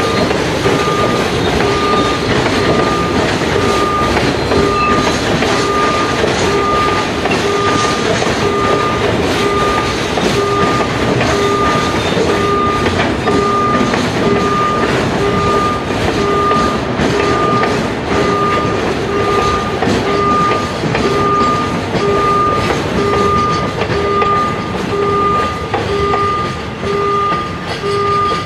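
State Railway of Thailand freight train of tank wagons and container wagons rolling past close by, its wheels running steadily on the rails. Over it, an electronic beeping repeats about three times every two seconds.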